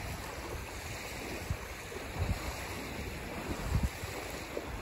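Wind buffeting the microphone in gusts over the steady wash of small waves breaking on a pebbly river shore.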